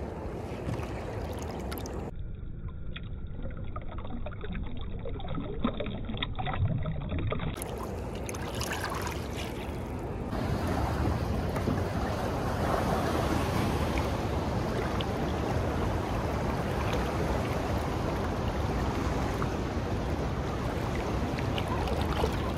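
Steady rushing noise of fast river water and wind on the microphone, with a few light knocks in the first half. It grows louder and steadier from about ten seconds in.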